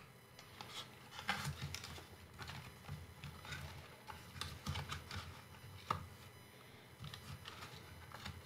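Fingers handling a drone's plastic body and its wiring: small irregular plastic clicks, taps and rustles, with sharper clicks about a second in and again near six seconds.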